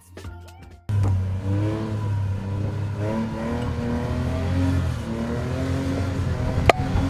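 Buggy engine comes in abruptly just under a second in and runs under load, revving with its pitch rising and falling. A sharp click comes near the end.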